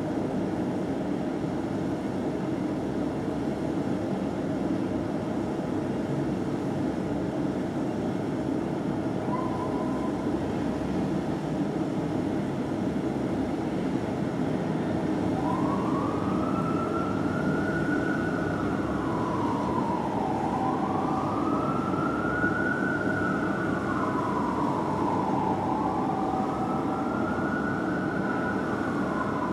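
Fire truck siren in a slow wail, rising and falling about three times from about halfway through, after a brief short tone about a third of the way in. It sounds over steady background noise.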